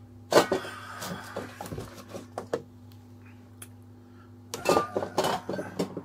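Hard objects being handled and set down on a workbench: a string of sharp knocks and clatters in the first couple of seconds, a short lull, then another cluster of knocks near the end, over a steady low hum.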